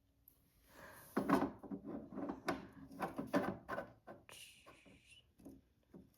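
Toy barn wall pieces being handled and pushed together: a run of irregular clicks, knocks and rattles, with a short scrape about four seconds in.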